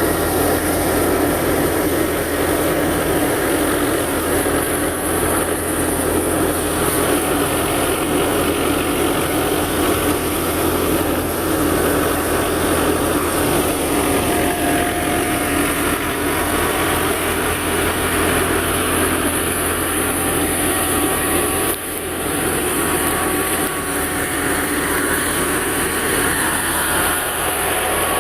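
Tractor-driven wheat thresher running steadily: the tractor engine and the threshing machinery make a loud, continuous mechanical noise with a constant low hum, dipping briefly once.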